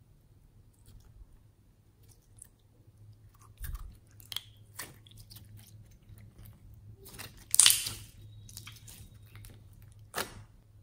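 Slime being squished and stretched by hand, with putty slime worked into it: a run of small wet clicks and pops, with a louder burst about two thirds of the way through and another near the end.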